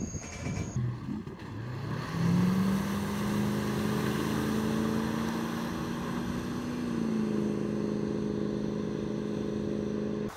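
Ski tow boat's engine rising in pitch about two seconds in as it picks up speed, then holding a steady pitch while pulling a water-skier, with wind and water noise underneath.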